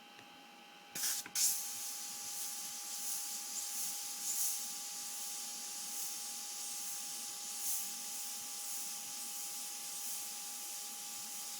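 Airbrush spraying paint on compressed air: two short blasts about a second in, then a steady hiss with small swells as the trigger is worked.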